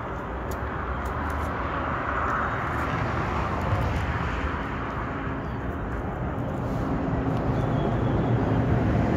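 Steady low rumble of vehicle or engine noise, slowly growing louder toward the end.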